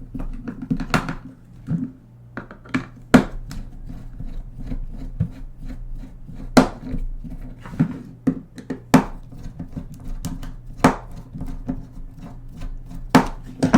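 Irregular sharp clicks and knocks of a small screwdriver and hands working on the plastic case of a microcassette recorder while taking it apart.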